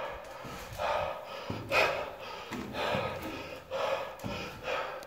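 A man breathing hard in loud, rhythmic gasps, about one breath a second, winded from climbing many flights of stairs.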